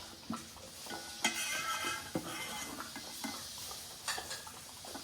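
Spoon and dish clinking and scraping while a puppy eats rice and lentils from a spoon, with a handful of short sharp taps spread through.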